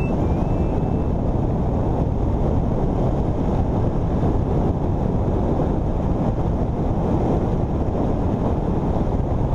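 Steady wind rush on the microphone of a camera riding on a Suzuki V-Strom 650 motorcycle at road speed, mixed with the motorcycle's running and road noise.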